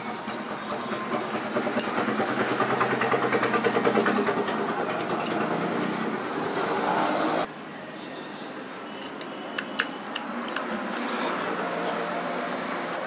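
A machine running with a fast, even pulse, loudest about four seconds in, then cut off suddenly about halfway through. A few sharp metal clicks of hand tools on the motorcycle clutch assembly follow.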